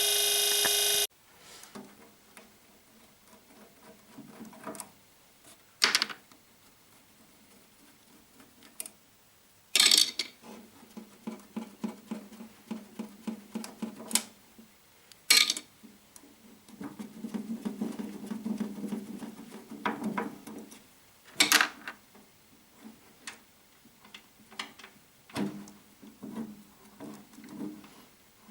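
A steady whine cuts off suddenly about a second in. It is followed by scattered light clicks, taps and knocks of small parts and tools being handled, with a rougher clattering stretch past the middle.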